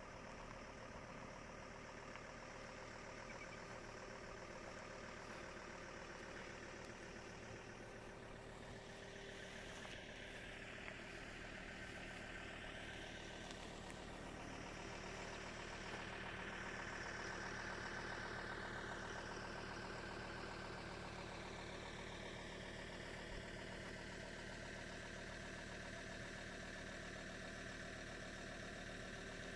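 An engine idling steadily, growing a little louder about halfway through and then easing back.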